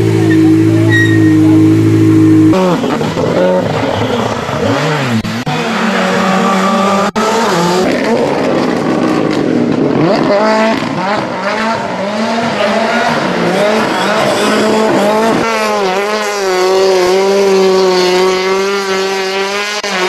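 Rally car engines. One idles steadily at first. After abrupt cuts, cars rev hard and accelerate, the engine pitch climbing and dropping through gear changes, and near the end an engine holds a wavering, fairly steady note.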